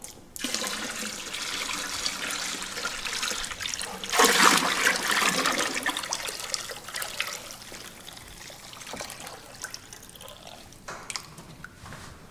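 Water pouring from a plastic jerrycan into a plastic drum of liquid sulfur solution, gushing and splashing. The flow is loudest about four seconds in, then thins to a weaker trickle.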